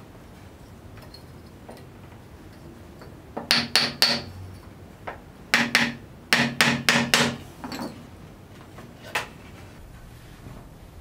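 Hammer blows on wood in quick irregular groups: about four, then two, then five, then two single blows, each with a short hollow ring.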